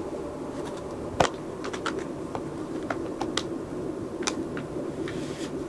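Kitten claws clicking and scratching on denim as two kittens tussle on a lap: a scatter of small sharp ticks, the sharpest about a second in, over a steady low hum.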